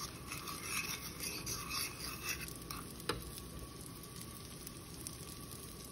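A utensil stirring and scraping through soft scrambled eggs, with faint sizzling from the hot pan. The stirring is busiest in the first half, with a single light knock about three seconds in.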